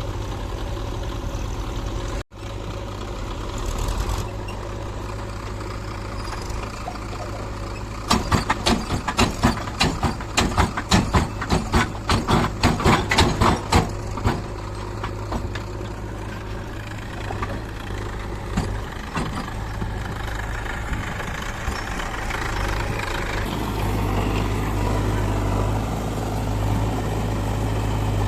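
Diesel engine of a JCB 3DX backhoe loader running steadily at work. For about six seconds in the middle comes a rapid, loud run of clattering knocks, several a second.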